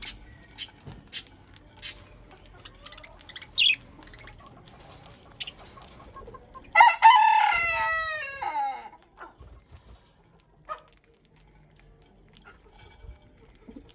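Short sharp bird chirps in the first few seconds, then a rooster crows once, about seven seconds in: a loud call of about two seconds that falls in pitch at the end.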